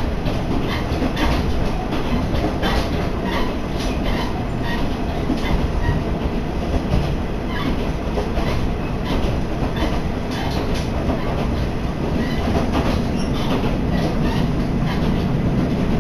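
Interior of a diesel railcar running along the line: a steady rumble of the running train, with irregular clicks and clacks of the wheels passing over rail joints.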